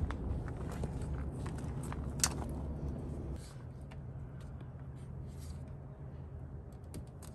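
Small plastic clicks and fumbling as the orange high-voltage service disconnect plug of a BMW i3 is worked back toward its on position, with one sharper click about two seconds in. A low rumble underneath drops off about halfway through.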